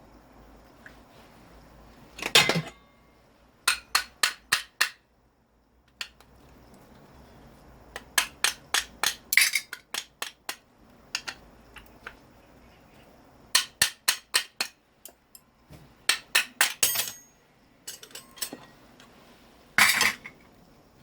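Hammer striking metal while a scrapped electric motor is taken apart for its copper. The blows come in quick runs of four to six with pauses between, plus two longer, heavier clanging hits, one about two seconds in and one near the end.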